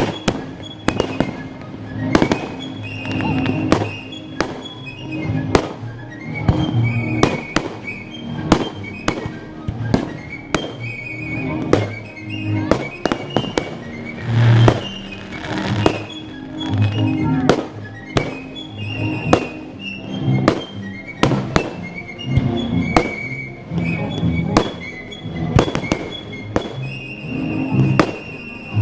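Fireworks shells bursting in quick succession, many sharp bangs and crackles, over orchestral music.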